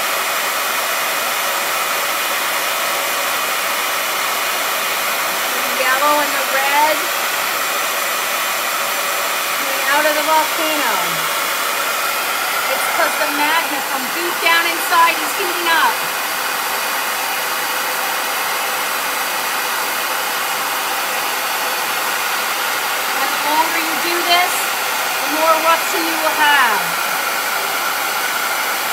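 Handheld hair dryer running steadily, blowing close over paper: a constant rush of air with a steady whine in it. A voice comes through over it several times.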